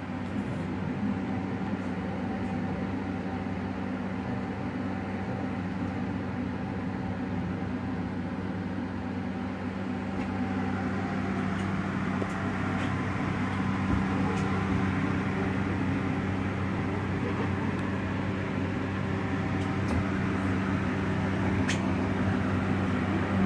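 Steady low mechanical hum, with a few faint clicks and knocks.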